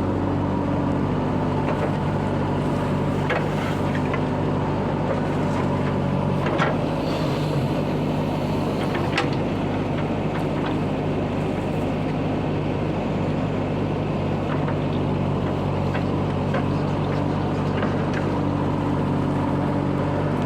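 Heavy diesel engine running steadily at a constant speed, with a few short knocks scattered through.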